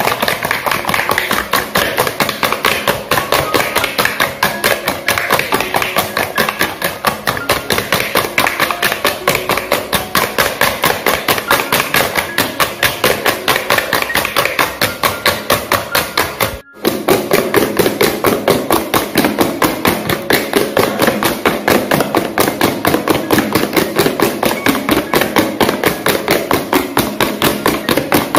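Wire balloon whisk beating eggs and sugar by hand in a plastic bowl, its wires clicking against the bowl in a fast, even rhythm as the mixture is whipped toward a pale, stiff foam. The clicking breaks off for a moment about two-thirds through, then carries on.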